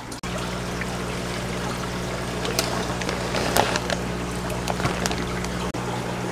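Aquarium filter running: water trickling and splashing over a steady low electrical hum, with a few faint light ticks.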